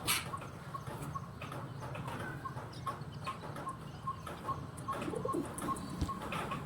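Pigeons and parakeets with soft bird calls and scattered sharp clicks, over a faint, even ticking of about five pips a second.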